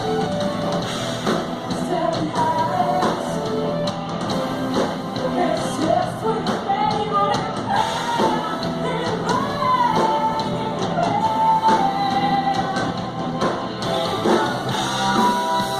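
A rock-and-roll band playing with a lead vocal sung over it.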